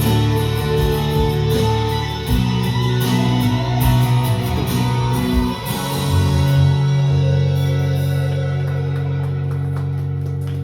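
Instrumental song ending on guitar with bass and drums; about six seconds in, a final chord is struck and held, slowly fading out.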